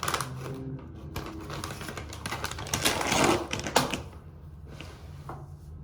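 Handling of a pack of cleaning wipes: scattered clicks and rustling, with a longer rustle about three seconds in and a sharp click just after it.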